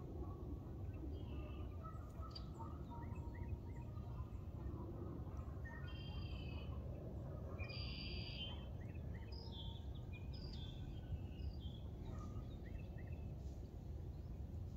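Several birds chirping and calling in short notes and quick clusters over a steady low background rumble.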